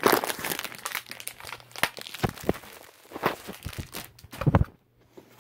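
Plastic packaging crinkling and rustling as it is handled, with irregular knocks and a louder cluster of crackles about four seconds in.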